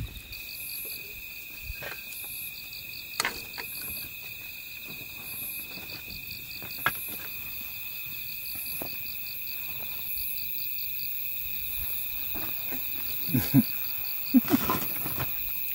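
Night insects calling steadily: a continuous high trill with a second, shorter call repeating about once a second. A few sharp clicks and some brief low sounds come through near the end.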